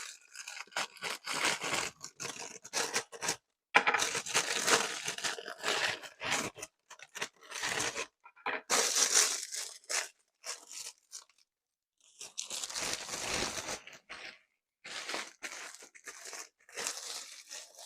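Plastic rice-cake packaging crinkling and tearing as it is handled and opened, with crisp crunchy rustles from the rice cakes, in irregular bursts with short pauses between them.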